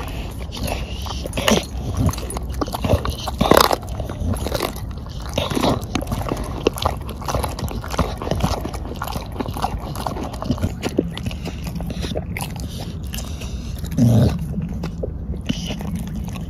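Bulldog-type dog chewing and biting into a whole raw black chicken carcass: irregular wet crunching and tearing close up, with one louder low thump about 14 seconds in.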